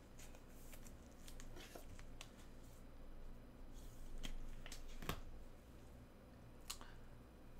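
Soft rustling and a few sharp clicks of trading cards and packaging being handled on a table, the loudest click about five seconds in.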